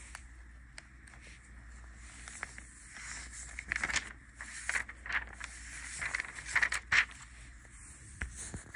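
Handling noise: scattered rustles, scrapes and soft knocks as the recording device is moved about, busier and louder from about three seconds in.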